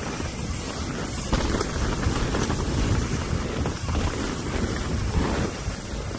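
Wind buffeting the microphone of a camera on a mountain bike riding down a dirt trail, over a steady rumble of tyres and a few knocks as the bike hits bumps.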